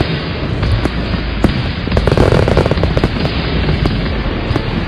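Fireworks barrage: a dense, continuous volley of rapid crackling pops and bangs with no pauses.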